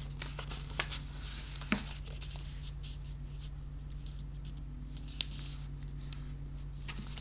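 A square sheet of origami paper rustling and sliding on a cutting mat as it is folded and creased by hand, with a few sharp clicks, over a steady low hum.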